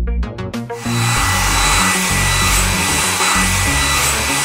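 Steady hissing whoosh of a cartoon water tanker's pump drawing water up its hose into the tank, starting about a second in, over background music.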